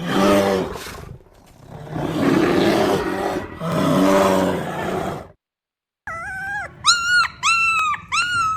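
Dubbed-in bear roar and growl sound effects: three long, rough growls. After a brief gap they give way to a run of five or six high, wavering cries, each rising and then falling away.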